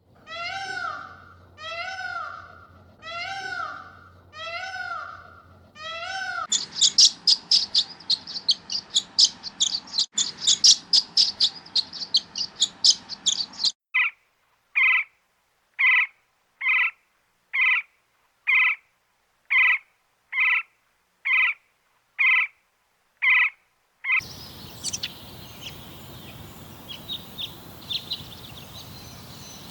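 A run of separate bird-call recordings. It opens with about six repeated arching calls, roughly one a second. Next comes rapid high chirping at about four a second for some seven seconds, then ten evenly spaced calls just under a second apart with dead silence between, and finally faint chirps over a steady background hiss.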